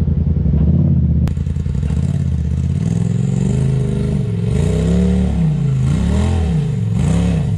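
Side-by-side UTV engine running, the throttle blipped up and down three times in the second half, with a sharp click about a second in.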